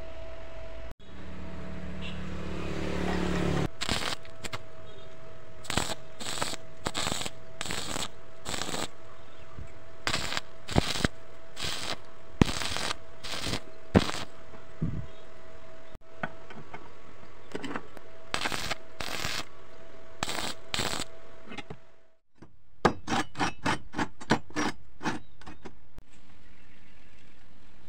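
Stick (arc) welding on steel: the arc crackles and spits in many short bursts, like tack welds, with a quicker run of crackles near the end and a steady faint hum behind.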